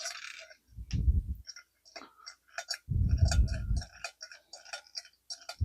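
Rapid small metallic clicks from a 1932 Klein Continental typewriter's stiff type bars and keys being worked loose by hand. Two dull thumps come about one second and three seconds in.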